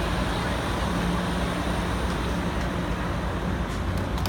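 Amtrak Pacific Surfliner train standing at the platform, its F59PHI diesel locomotive idling with a steady low hum and rumble.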